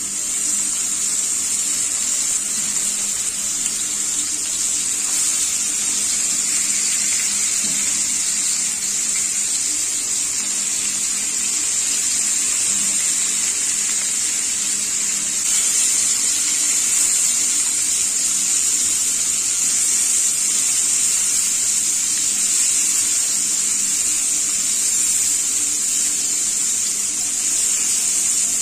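Fish pieces sizzling in hot oil in a frying pan: a loud, steady, even hiss.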